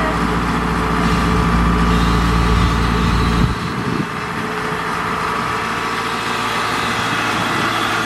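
Kubota DC-70 combine harvester's diesel engine running steadily as the tracked machine crawls down into a flooded paddy. The deep low rumble drops away abruptly about three and a half seconds in, while the engine's steady tone carries on.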